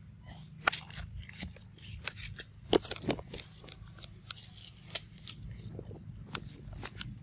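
Dry leaf litter crackling and snapping in scattered sharp clicks as feet move over the forest floor, loudest about three seconds in.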